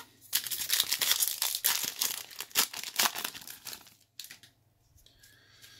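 A 2024 Topps Series 1 baseball card pack wrapper being torn open and crinkled in the hands: a dense, papery rustle that lasts about four seconds and stops abruptly.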